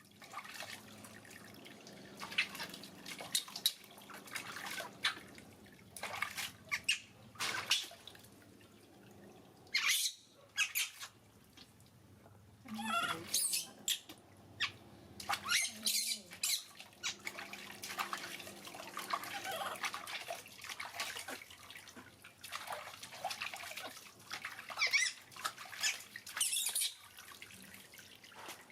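Baby monkey giving many short, high-pitched squeaks and chirps, some gliding up and down, mixed with intermittent clicks and splashy handling noises.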